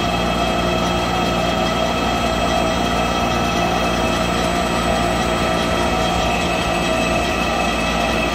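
Summit SC30-9X80M CNC lathe spindle turning its 26-inch four-jaw chuck at a steady speed, with no cutting. It gives a steady mechanical hum with several even whining tones from the spindle drive.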